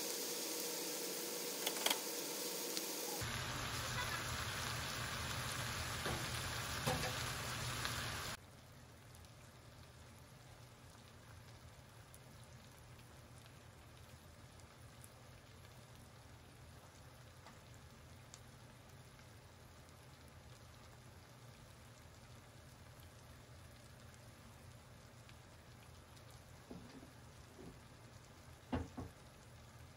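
Mixed vegetables sizzling as they fry in a pan, loud at first, then dropping suddenly to a faint sizzle about eight seconds in. A few light knocks near the end.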